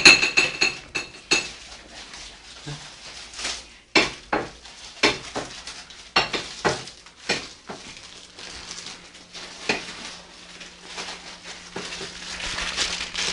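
Metal cutlery clinking and knocking against dishes in irregular strikes, with a ringing clink in the first second or so.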